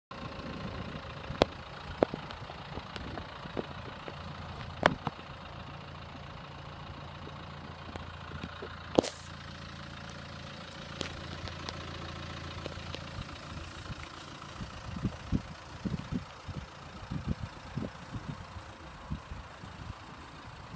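Steady low hum of an idling vehicle engine, with several sharp clicks in the first half and scattered low thuds in the second half.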